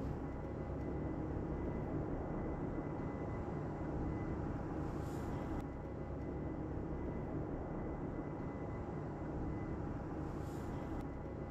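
A steady mechanical hum with a few constant tones over an even rushing noise, unchanging throughout.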